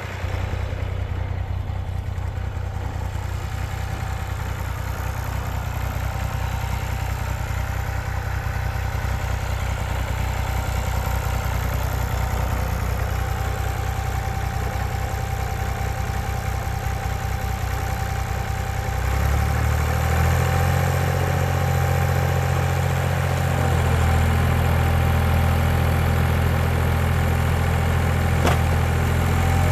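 Massey Ferguson 35 tractor engine running steadily with a rototiller behind it, with a faint steady whine above the engine note. About two-thirds of the way in the engine note steps up, louder and a little higher, and holds there; a single short click comes near the end.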